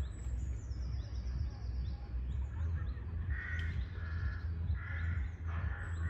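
A crow cawing about five times in a row, starting about halfway through. A smaller bird gives thin high calls in the first second or two, over a low steady rumble.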